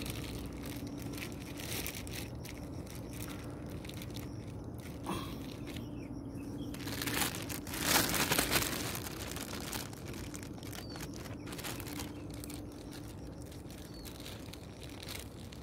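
Rustling and crunching of leaves, grass and sticks being handled and stepped through, with a louder stretch about eight seconds in, over a faint steady hum.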